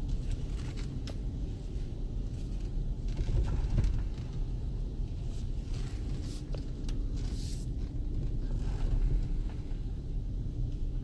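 2014 Jeep Grand Cherokee Summit driving on snow: a steady low rumble of engine and tyres, with a few faint clicks and brief hisses over it.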